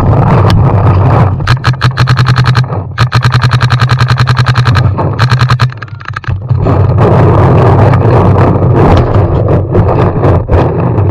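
Paintball marker firing two long, rapid strings of shots in the middle, with scattered single shots elsewhere, over a steady low rumble.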